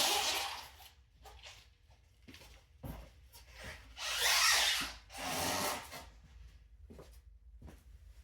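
Scraping and rubbing handling noises in three bursts, near the start, about four seconds in and about five and a half seconds in, with a few light knocks between them.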